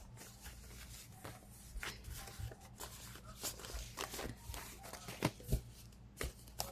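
Tarot cards being handled and shuffled: irregular rustles, flicks and light taps, with two sharper snaps a little past the five-second mark.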